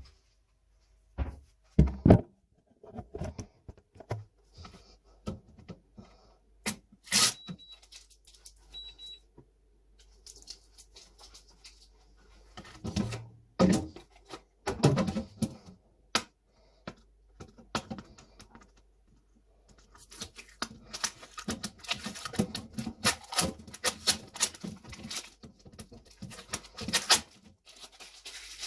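Household handling noises while a refrigerator is organised: containers, lids and packaging knocked down and rustled, in scattered knocks at first and then a busier stretch of clattering near the end. Two short high beeps sound about a third of the way in.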